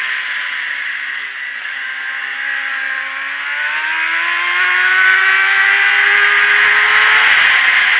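Sport motorcycle engine heard from onboard, under heavy wind rush: the revs fall for about three seconds as the bike slows for a corner, then climb steadily as it accelerates out, dropping again near the end.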